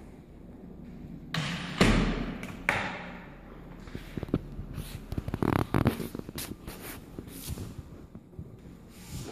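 Bumps and knocks in an empty room: a loud rubbing sound with a heavy thud about two seconds in, then a scatter of light taps and clicks.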